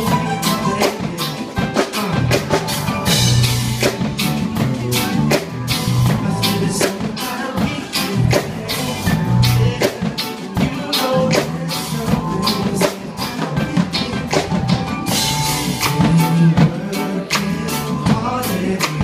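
Live reggae band playing: drum kit keeping a steady beat under bass, electric guitars and keyboards, heard from the audience in front of the stage.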